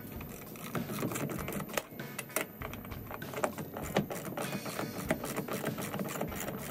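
Ratchet wrench clicking in quick irregular runs as the nuts on a metal mounting bracket are turned loose, with small metal clinks from the bracket and bolts.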